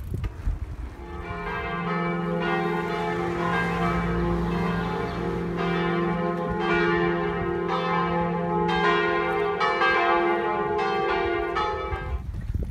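Church bells ringing, a rapid run of overlapping strokes whose hum carries on underneath; it stops abruptly near the end.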